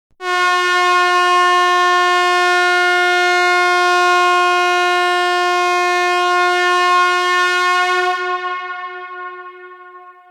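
A single long, steady, unwavering tone, rich in overtones, held for about eight seconds and then fading away before it cuts off.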